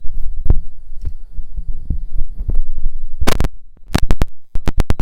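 Handling noise as a phone is taken off its tripod and carried: irregular low thumps and knocks on the microphone, a short rustle a little past three seconds in, and a quick run of clicks near the end.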